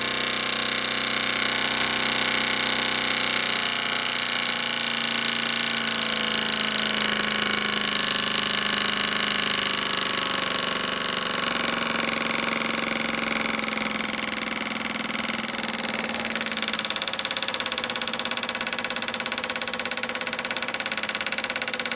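Small double-acting oscillating steam engine, built from a casting kit, running at high speed on steam. Its exhaust beats come so fast that they run together into a steady mechanical buzz.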